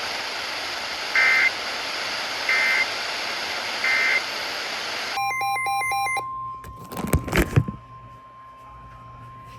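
Weather radio static hiss broken by three short two-tone data bursts about 1.3 seconds apart: the SAME end-of-message code that closes a NOAA Weather Radio warning. About five seconds in, the hiss cuts off and a brief electronic warble and a steady tone begin, with a few loud thumps shortly after.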